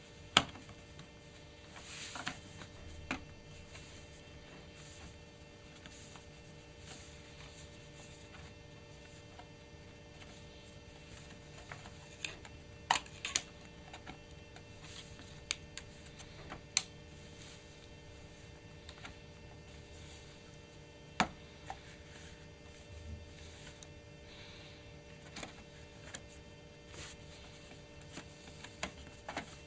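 Scattered sharp clicks and taps of the Titanium PowerBook's metal base plate being handled and pressed onto the laptop body, a few louder clicks among quieter ones, over a steady low electrical hum.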